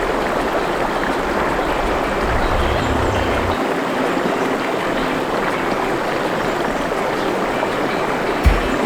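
A stream of water running steadily, with a low thump near the end.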